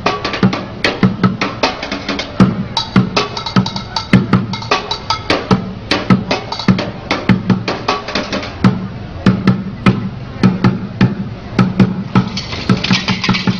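Street bucket drumming: upturned plastic buckets struck with drumsticks in a fast, dense, driving rhythm of deep hollow bucket thumps mixed with sharp clicking rim hits. The playing gets brighter and harsher near the end.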